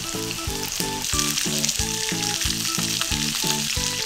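Starch-coated chicken wings shallow-frying in a pan of hot oil, a steady dense sizzle, over background music with a steady beat of about three notes a second.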